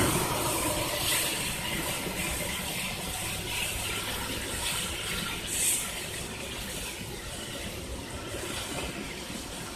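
Freight train of tank cars rolling over the rails: a steady rush of wheel-on-rail noise that slowly grows quieter, with one brief louder hiss a little past halfway.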